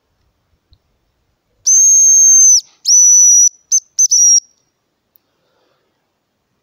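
Homemade hazel grouse call blown at close range, imitating the grouse's song to lure the bird in. It gives high thin whistles: two long notes, each dropping in pitch at its end, then three short notes, the last one stuttering.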